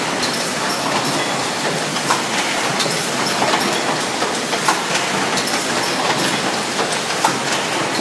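ST036B automatic case-making machine for grey-board boxes running: a steady, dense mechanical clatter with frequent sharp clicks.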